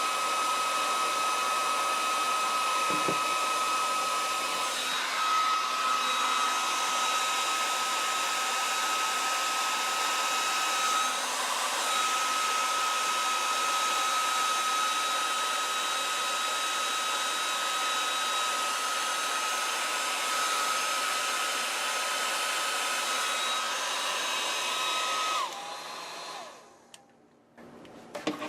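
Electric hot-air blower (heat gun) running steadily with a high motor whine, heating heat-shrink tubing. It switches off about 25 seconds in, and the whine drops away as the fan spins down.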